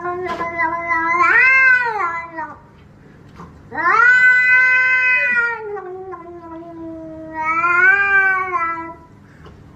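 Grey domestic cat yowling in long, drawn-out meows that waver in pitch: one fades out about two and a half seconds in, then a longer one starts about a second later, sinks lower and swells up again near the end.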